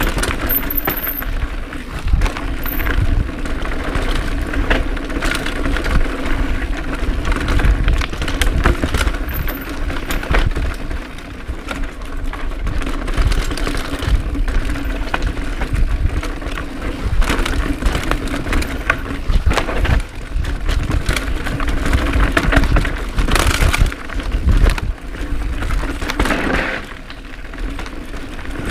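Full-suspension mountain bike clattering down a rocky, rooty trail: a continuous rattle of knocks and cracks as the tyres hit rocks and roots and the chain and frame shake.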